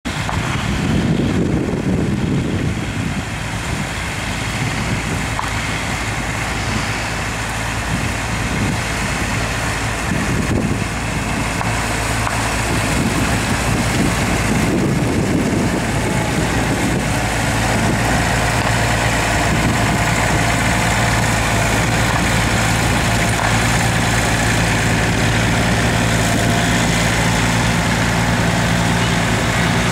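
New Holland tractor's diesel engine running steadily under load while pulling a reversible plough, with a gusty low rumble over it for roughly the first half. The engine drone grows steadier and stronger in the second half.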